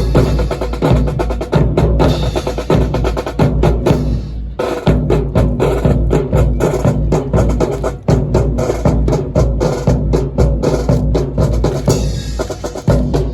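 Marching percussion playing a drill cadence: rapid snare and bass drum strokes with sharp, wood-block-like clicks.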